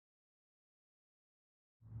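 Dead silence, then a low rumble with a steady hum fades in just before the end.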